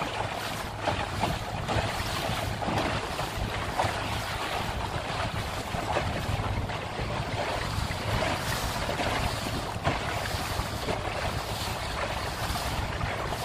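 Boat under way on choppy river water: a steady motor hum under wind buffeting the microphone, with water splashing against the hull.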